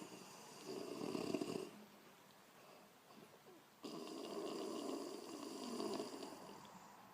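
A woman snoring: one short, loud snore about half a second in, then a longer snore of about three seconds starting near the four-second mark.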